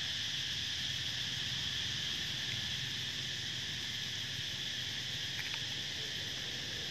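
Steady insect chorus, a continuous high-pitched drone with no pauses.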